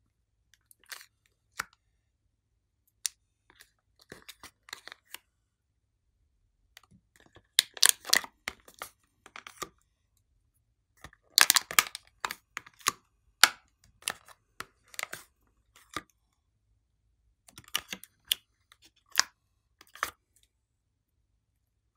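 Thin clear plastic blister tray crackling and clicking as soft modelling clay sticks are pulled out of it, in scattered clusters of crackles with quiet gaps between and two louder spells partway through.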